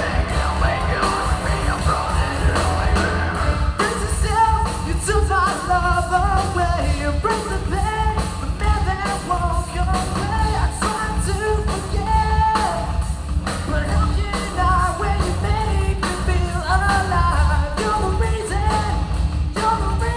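Live rock band playing, with electric guitars, bass and a drum kit under a sung lead vocal.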